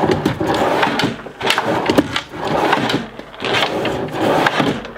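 An MDF drawer sliding in and out on metal telescoping drawer slides, about three strokes of rolling, rushing slide noise with a few sharp clicks. The drawer is running smoothly, with a 3 mm gap keeping it from rubbing on the base.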